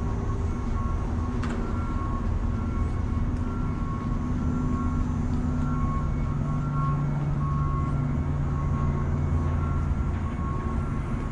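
Short electronic warning beeps repeating over a steady low rumble of engines and street traffic.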